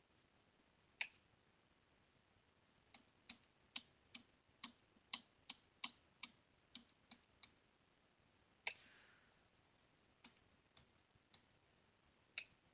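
Faint keystrokes on a computer keyboard: a single press about a second in, then a run of about a dozen typed keys through the middle, one louder press after that, and a few scattered presses near the end.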